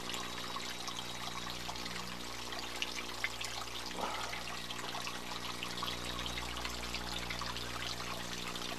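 Small spring-fed water trickling steadily through wet grass, mud and rocks.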